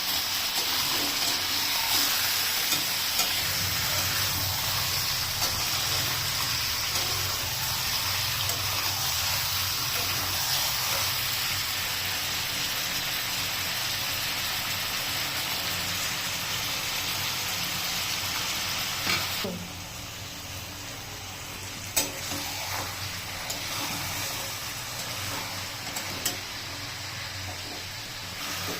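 Chicken curry sizzling and frying in a pan as it is stirred. About two-thirds of the way in, the sizzle suddenly drops to a quieter sizzle, with a few sharp clinks of a utensil on the pan.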